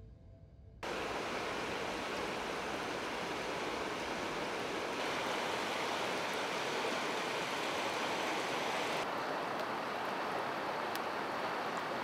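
Shallow river water rushing steadily over stones and cobbles, a continuous even rush that starts abruptly about a second in.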